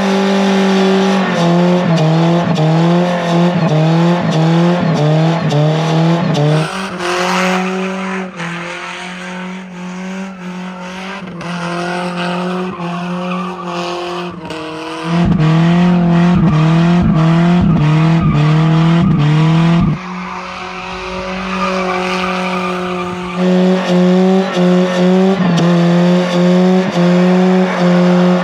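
Nissan Hardbody's KA24E four-cylinder engine held near the rev limiter at a steady high pitch, stuttering rapidly as it bounces off the limiter, while the tires spin and squeal in donuts. For a stretch in the middle and again later on, the engine is heard from farther off and quieter, with the tire squeal more prominent.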